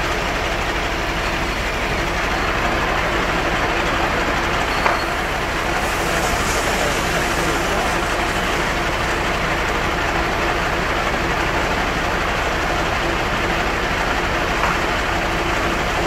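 A heavy vehicle engine running steadily with a constant hum, with a single sharp knock about five seconds in.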